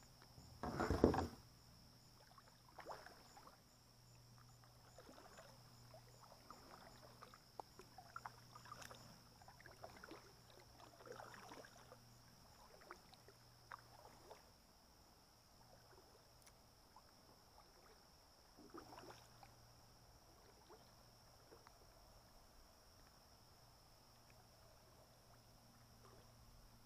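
Kayak being paddled: soft paddle splashes and drips, with short knocks against the kayak, the loudest a clatter about a second in and the strokes thinning out after about 15 seconds.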